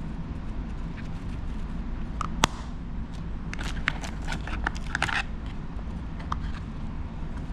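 Small clear plastic snap-lid boxes being handled: one sharp click about two and a half seconds in, then a quick cluster of clicks and rustling of tissue and plastic between about three and a half and five seconds. A steady low hum runs underneath.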